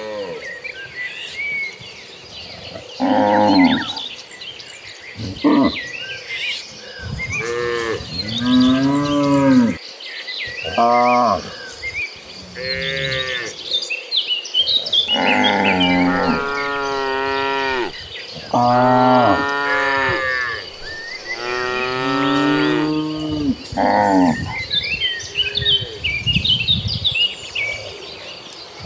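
A herd of cattle mooing over and over, about a dozen long, drawn-out calls, several overlapping, the longest and loudest in the second half. High chirping runs underneath.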